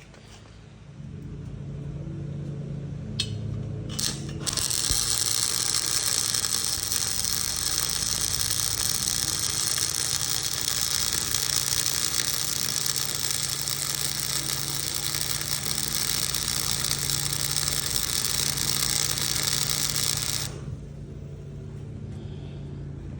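Lawn mower engine running low and steady, with a loud steady hiss from about four seconds in that cuts off suddenly near the end: the newly fitted weedkiller sprayer's pump and nozzle spraying.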